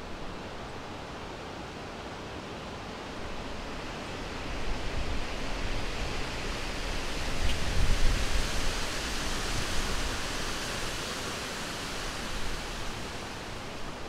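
Wind: an even rushing hiss that swells into a stronger gust about halfway through, with a low rumble at its peak, then eases off.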